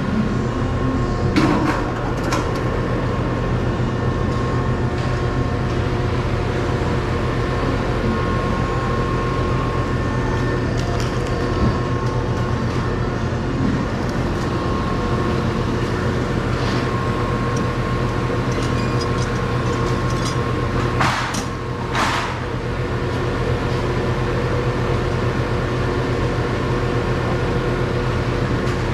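Steady machinery drone with a low hum, with a few short metal knocks, the clearest two or three coming about three quarters of the way through.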